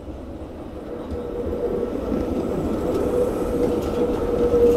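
An old tram passing close by: the rumble of its wheels on the rails, with a steady whine that grows louder from about a second in as it draws near.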